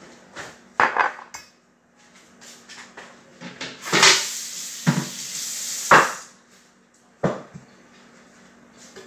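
Kitchen clatter as dishes and utensils are handled and set down on the counter, including a glass measuring jug, with several sharp knocks and clinks and about two seconds of continuous noise in the middle.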